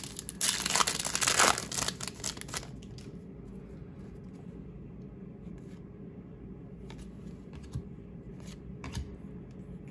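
A trading-card pack's wrapper crinkling and tearing for about two and a half seconds, then quieter handling of cards with a few faint clicks.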